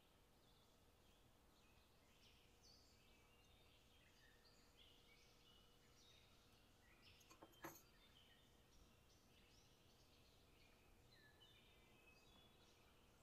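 Near silence with faint birds chirping throughout, many short chirps at varied pitches. A brief tap sounds once, about seven and a half seconds in.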